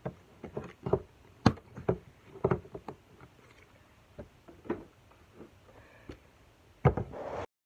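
Irregular clicks and knocks of objects being handled near a phone, then a louder clatter about seven seconds in as the phone falls, with the recording cutting out right after.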